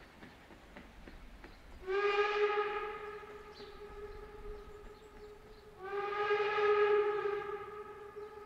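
Steam locomotive whistle sounding two long blasts, the first starting about two seconds in and the second about six seconds in. Each blast slides up slightly into a steady tone.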